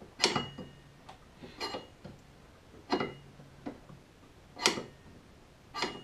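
Sharp metallic clicks of a wrench working on a snowmobile's brake line fitting. There are about five loud ones, roughly a second apart, with fainter taps between, and some of them ring briefly.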